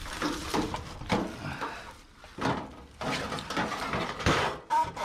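A run of knocks, clatter and scraping as scrap items are handled and loaded, busiest in the second half.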